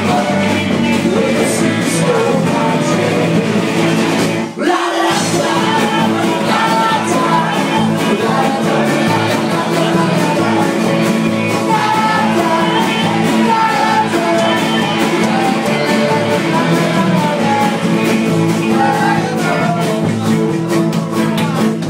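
Live band playing a loud rock song with a singer. The music breaks off for a moment about four and a half seconds in, then carries on.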